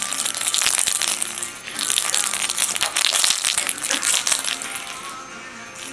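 Bell inside a crocheted toy egg jingling in quick, busy bursts as the egg is shaken and rolled about. The jingling thins out near the end.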